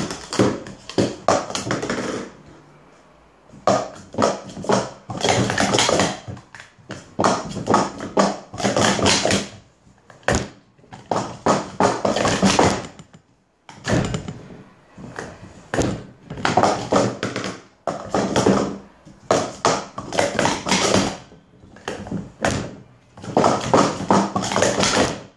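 Plastic sport-stacking cups (Pro Series 2) being rapidly stacked up and down on a stacking mat: fast runs of light clattering taps and knocks, in several bursts separated by short pauses.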